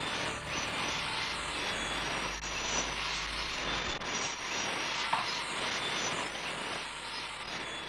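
Steady rushing noise with a slowly sweeping, hollow phasing quality, cutting in suddenly at the start.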